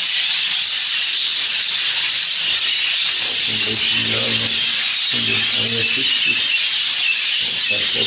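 A large flock of budgerigars chattering steadily, a dense unbroken wash of high-pitched bird chatter.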